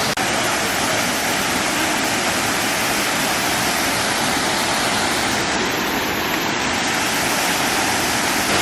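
Waterfall pouring close by: a steady, loud rush of falling water.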